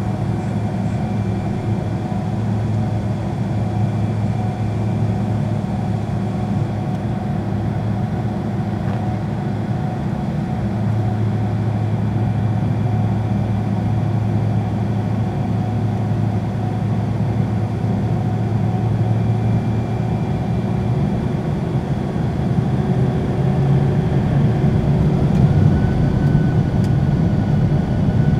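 Boeing 767's General Electric CF6 turbofan engines at low power, heard from inside the cabin as a steady low hum. Near the end a thin whine comes in and begins to rise as the engines start to spool up.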